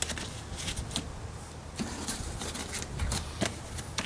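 Scattered light clicks and rustling as parts and wiring inside a car door are handled, over a low steady hum.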